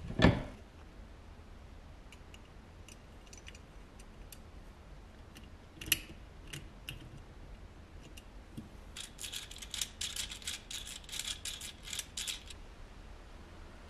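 A sharp knock just after the start, then a few small metallic clicks. Near the end comes a rapid run of clicking for about three seconds as the small metal gear and crank mechanism of a tin wind-up toy is worked by hand.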